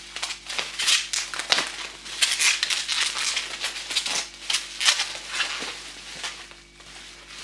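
Clear plastic wrapping crinkling and rustling in irregular bursts as it is pulled off a nail polish bottle, dying down near the end.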